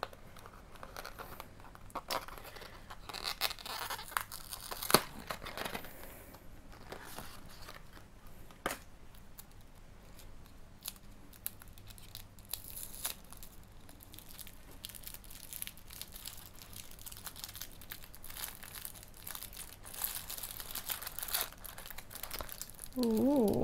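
Paper packaging being opened: a sticker seal peeled from a small cardboard jewellery box and black tissue paper crinkling and tearing as a charm is unwrapped. Scattered sharp clicks among the rustling, the loudest about five seconds in.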